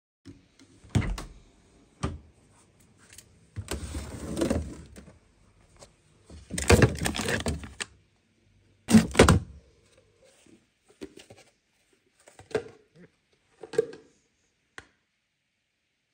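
A freezer drawer and hard plastic food containers being handled: a few knocks, two longer scraping, rustling stretches, a pair of sharp thunks about nine seconds in, then lighter taps.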